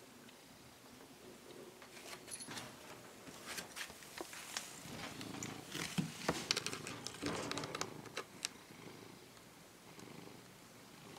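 Domestic cat purring close to the microphone, with soft clicks and rustles that are busiest from about two to eight seconds in.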